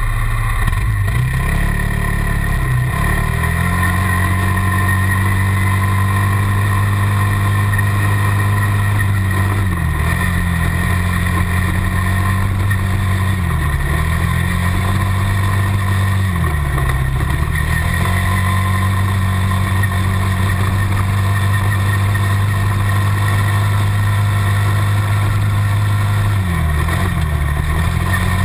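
Single-cylinder quad-bike (ATV) engine running hard at steady revs, easing off and picking back up several times as it climbs a gravel track.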